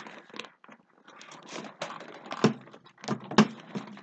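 Frame parts of a Fisher-Price Rock 'n Play sleeper handled and fitted together: scattered light clicks and rustling, with two sharper knocks about two and a half and three and a half seconds in.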